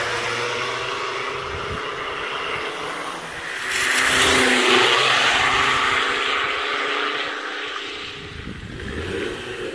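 Volvo S60 D5's 2.4-litre five-cylinder turbo diesel with a straight-pipe exhaust (no muffler, no catalytic converter) as the car drives past. It is loudest about four seconds in, with hiss from the tyres on the wet road, and its pitch drops as it goes by.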